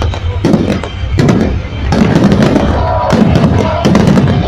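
Aerial fireworks bursting in rapid succession, many sharp bangs and crackles a second over a continuous low rumble, with pyromusical show music playing underneath.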